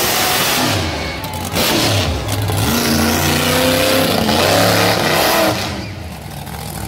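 Monster truck engine at full throttle, revving hard as the truck accelerates across the dirt, its pitch climbing in steps. It falls away near the end.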